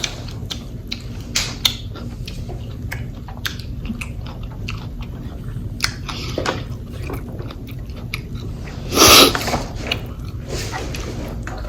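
Close-up eating sounds: chewing, with many short wet lip smacks and mouth clicks, and one louder, noisy burst about nine seconds in.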